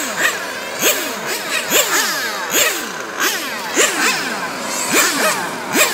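Several 1/8-scale electric RC cars racing, their brushless motors whining over one another: each whine rises sharply in pitch as a car accelerates and falls away as it lifts off, over and over.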